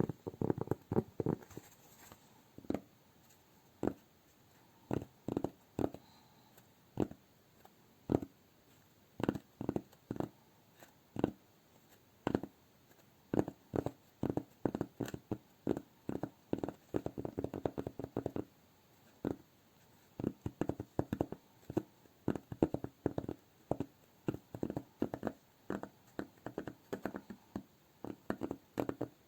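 Fingers tapping on cork, ASMR-style: short dull taps in irregular clusters with pauses, some stretches of quick repeated tapping and a brief denser patch of rubbing about two-thirds of the way through.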